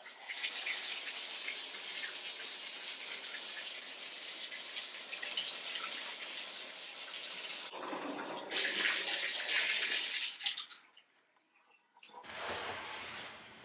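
Water running from a bathtub faucet, a steady hiss that grows louder about eight and a half seconds in, then stops about eleven seconds in.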